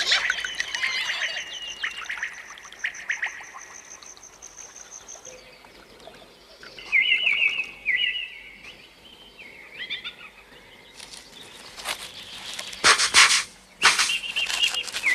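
Cartoon sound effects: a thin high whistle held for about five seconds, then short high chirps and twitters. Near the end come several loud scratchy bursts as a beetle digs its way up out of the sand.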